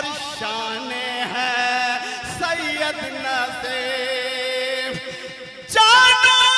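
A male singer performing a manqabat, a Sufi devotional song, amplified through a microphone, with long held notes. About six seconds in, his voice comes in much louder on a new phrase.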